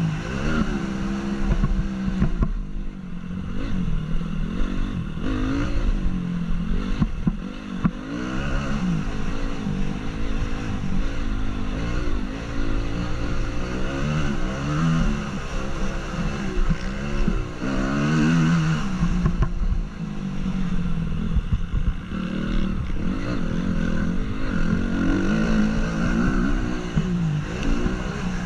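2014 Honda CRF 250's single-cylinder four-stroke engine under race load, its pitch repeatedly climbing and dropping back as the throttle is opened and closed through the gears.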